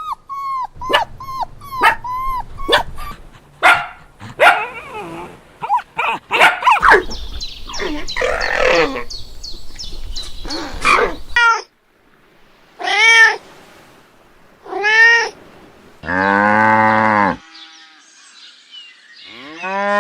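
Animal calls from several different animals, one clip after another. First come many short, quick calls. A busier mix of cries follows. Then there are two separate drawn-out calls, a longer and lower call about sixteen seconds in, and the start of another call at the end.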